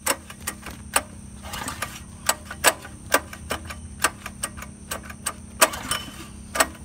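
A run of sharp, irregular clicks, about two or three a second, over a faint steady hum.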